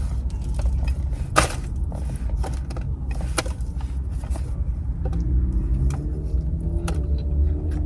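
Close-up chewing of a bite of fish sandwich dipped in marinara, with a few sharp clicky bites. A steady low rumble lies underneath.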